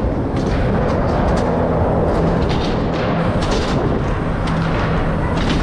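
Loud, steady rumble of wheels rolling over skatepark ramps, with scattered clicks and knocks throughout.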